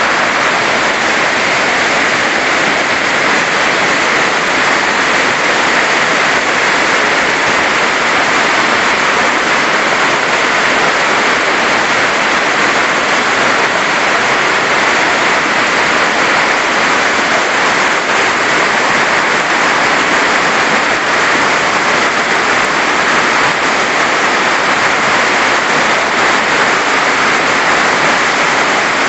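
A waterfall pouring down in a steady, loud rush of falling water.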